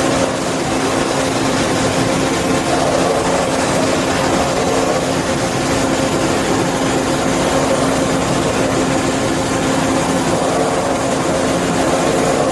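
Large CNC double-column bridge machining center running: a steady mechanical hum with a few constant held tones over an even bed of machine noise.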